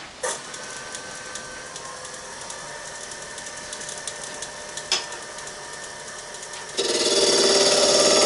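Wood lathe running with a steady whine after a click near the start; about seven seconds in, a turning tool bites into the spinning wood and a much louder, steady cutting noise takes over as the inside of a small box is hollowed toward its centre.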